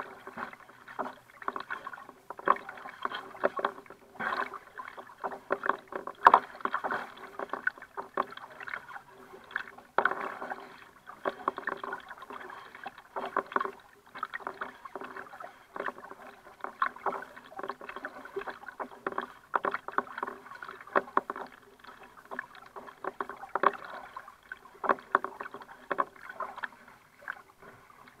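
Choppy water lapping and slapping against a kayak's hull as it moves along, a dense, irregular run of sharp splashy slaps.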